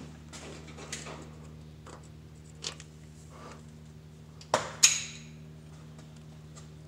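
Metal handling noises at the steering rack: a few light clicks and taps, then two sharp metallic clinks about four and a half seconds in, the second ringing briefly, over a steady low hum.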